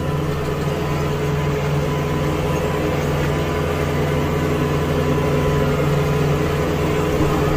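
Kubota tractor's diesel engine running steadily, heard from the driver's seat as an even, unchanging drone.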